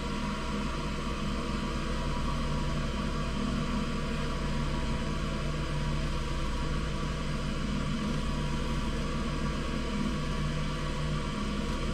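Wood lathe running steadily: an even motor hum under a constant hiss.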